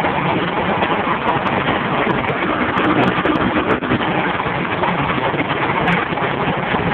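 Live rock band and arena crowd at full volume, recorded on a phone whose microphone is overloaded, so the sound is a dense, distorted wash with little clear detail.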